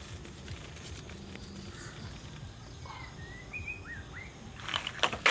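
Low outdoor background with a few short, rising bird chirps in the middle. Near the end a louder rush of clattering noise starts up, in step with the wok being lifted off the wood fire.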